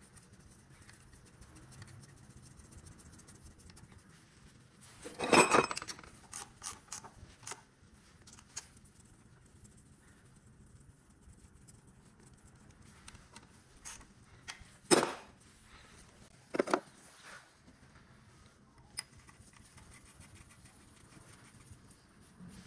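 Metal hand tools clinking and knocking against an engine cylinder head and its bolted-on camshaft locking tool. A clattering cluster of clinks comes about five seconds in, a sharp single knock around fifteen seconds, and a few lighter clicks in between.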